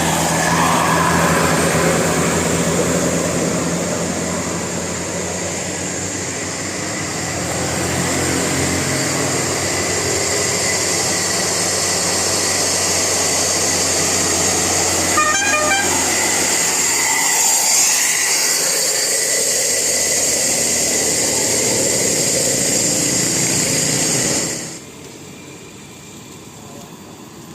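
A bus's 'telolet basuri' musical air horn sounding over a running bus engine. There is a quick series of short toots about halfway through, and the sound drops off abruptly near the end.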